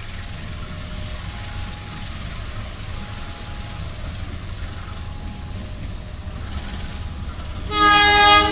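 CC 201 diesel-electric locomotive hauling a passenger train, its engine a steady low rumble. Near the end comes one short, loud horn blast.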